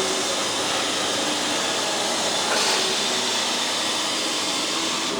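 Staged 'steam' blast from a cold-vapour effect, a loud steady hiss of gas jetting out. It swells a little about halfway through and cuts off at the end.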